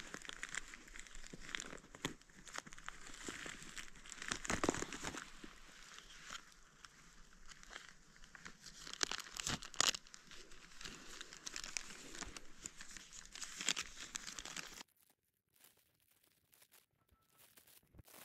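Crinkling and rustling of a white bag being handled and wrapped around a dead gray squirrel, with many small crackles; it stops abruptly near the end.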